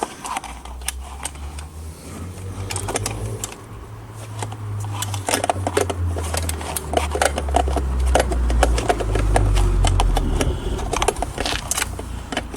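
Irregular clicks, knocks and scrapes of hands working parts inside a Kenwood Chef food mixer's casing, over a low rumble from about two seconds in until near the end.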